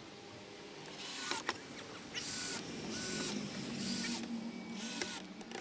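Cordless drill driver driving screws into pallet boards in short bursts: about five brief whirs, each ending in a short whine as the motor stops.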